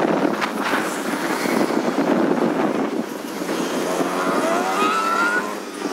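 Rushing wind and traffic noise heard from the back of a moving motorbike. About four seconds in, an engine rises in pitch as it speeds up.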